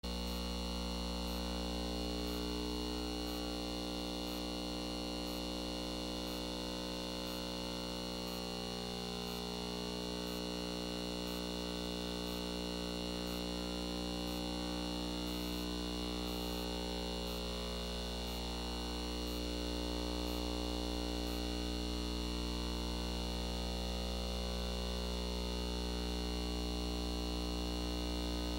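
Steady electrical or mechanical hum made of many held tones that waver slowly, with faint high ticks repeating about one and a half times a second.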